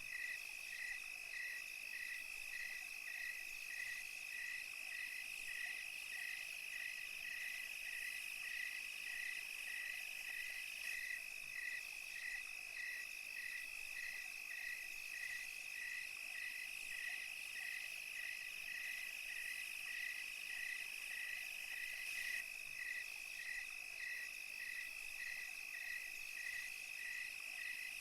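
Night chorus of crickets and other insects: a steady high trill under a chirp that repeats evenly about three times a second.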